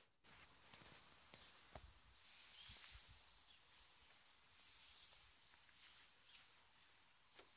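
Near silence: faint outdoor background hiss with a few thin, high chirps and small clicks.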